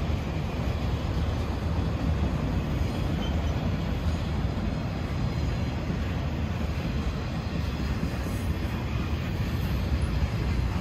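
Freight train rolling past: a steady, deep running noise of cars and wheels on the rails.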